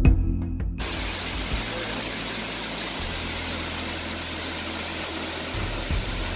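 Steady rushing hiss of a tall waterfall, cutting in suddenly about a second in, over background music with low bass notes.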